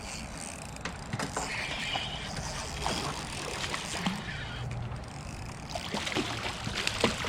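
Water splashing and sloshing close to a kayak, with scattered knocks and clicks, as a hooked fish is played at the side.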